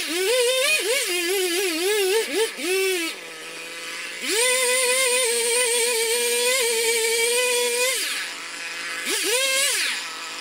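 Husqvarna 55 two-stroke chainsaw bucking a felled birch. It runs at high revs, its pitch wavering under the load of the cut, and drops back to idle twice, about three seconds in and again about eight seconds in, before revving up again.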